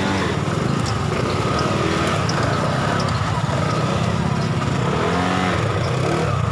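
Small motorcycle engine running steadily.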